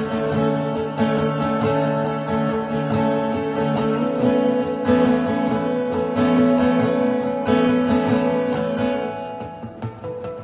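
Solo steel-string acoustic guitar played fingerstyle, with strummed chords, a picked melody and sharp percussive attacks. It thins out to a few quieter single notes near the end.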